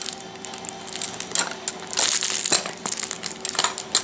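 A three-month-old baby mouthing and handling a toy: an irregular run of scratchy clicks and rustles.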